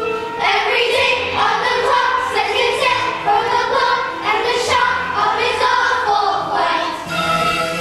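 A group of children singing together with musical accompaniment, a stage musical number; the sound grows fuller about half a second in.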